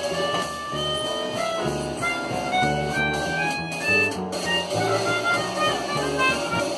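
A small acoustic jazz combo playing. Saxophone, trumpet and melodica lines run over an upright bass walking a note about every half second, with a drum kit keeping time.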